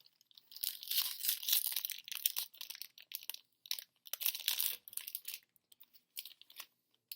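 Baseball card pack's foil wrapper being torn open and crinkled by hand, in two long bouts of crackling with a few short rustles after.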